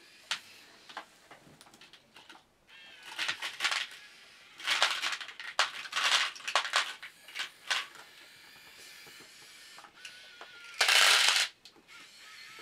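Small electric motors and plastic gears of a 1/50-scale radio-controlled Komatsu PC1250-8 excavator model, whining in short stop-start bursts as its functions are worked. The loudest and longest burst comes near the end.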